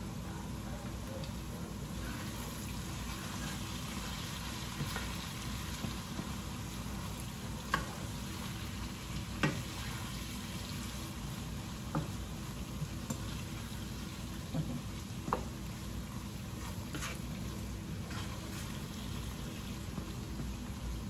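Oil and seasonings sizzling steadily in a pan on the stove, with several sharp clicks of a utensil against the pan as the mixture is stirred.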